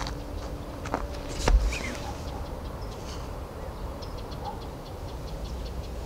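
Outdoor ambience with low wind rumble and knocks on the microphone as a handheld camera is swung, the louder knock about a second and a half in. A short falling chirp follows, and faint rapid high ticks, about five a second, run through the last two seconds.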